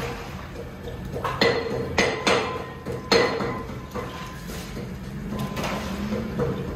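A perforated metal skimmer knocking and scraping against a large aluminium cooking pot, with several sharp clanks in the first few seconds, each leaving the pot ringing. Water sloshes as boiled rice is scooped out of its cooking water and drained.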